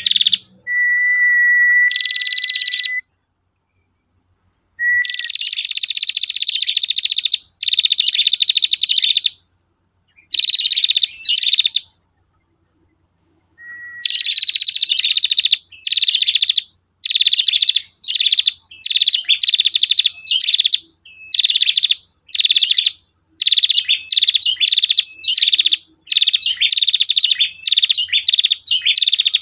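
Female prinia (prenjak) calling a series of long buzzy trills, the 'tir panjang' call, some opening on a short thin whistle. The first trills last one to two seconds with pauses between, then from about halfway they come shorter and quicker, roughly one a second, over a faint steady high tone.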